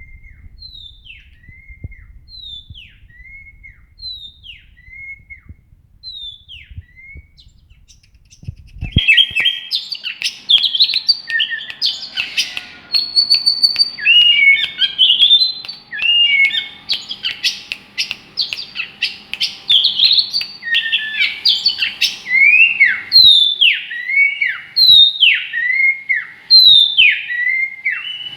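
A songbird singing. It starts with a slow series of single falling whistled notes, one about every second and a half. About nine seconds in it breaks into a loud, rapid, varied song of chirps and whistles, which settles into repeated swooping notes near the end.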